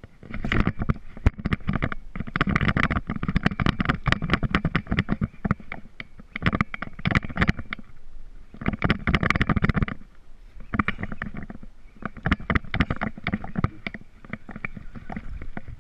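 Handling noise: a shirt sleeve rubbing and knocking against the camera in several bursts of scraping and knocking, with short pauses between them.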